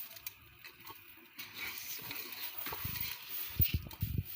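Soaked rice being tipped into a pot of boiling water: a soft pattering hiss, with several low knocks and splashes in the last second or so.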